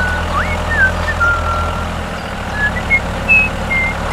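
Steady low hum of a small motor-driven vehicle running, with short high chirping whistles sliding up and down over it.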